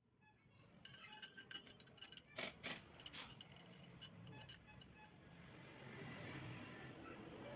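Faint light metallic clinks and taps with a short ring, with a few louder knocks about two and a half to three seconds in.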